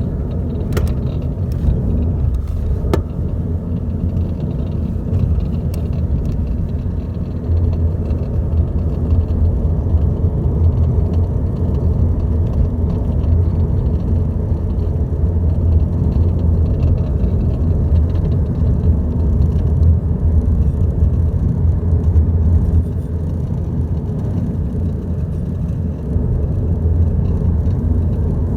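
2012 Volkswagen Passat TDI turbo-diesel running with a steady low rumble, a few sharp ticks standing out in the first six seconds: the dashboard rattle whose cause the owner cannot find.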